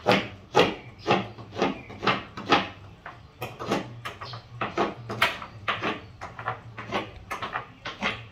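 Rhythmic scrubbing strokes against the fibreglass hull side of a boat, about two a second, as a coating is worked on by hand. A steady low hum runs underneath.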